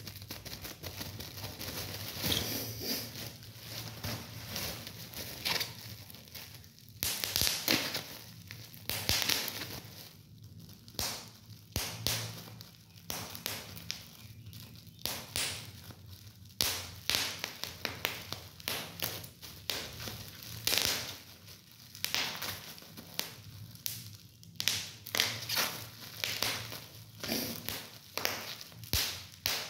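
Plastic bubble wrap squeezed and crumpled by hand: crinkling plastic with sharp pops as bubbles burst, irregular and sometimes several in quick succession.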